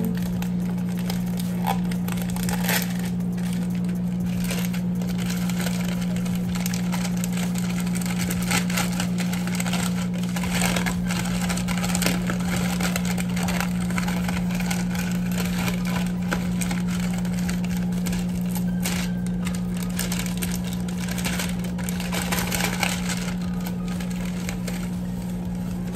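Microwave oven running with a steady low hum, with plastic packaging crinkling and rustling on and off as a resealable pouch of nori seaweed sheets is handled and opened.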